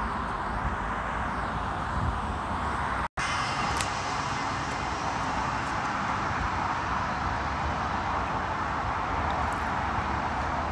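Steady rumble of distant road traffic, with the audio cutting out completely for a moment about three seconds in.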